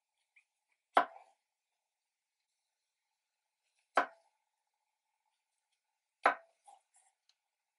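Kitchen knife slicing through mushrooms and knocking on a wooden cutting board: three sharp chops a few seconds apart, with a few faint ticks after the last.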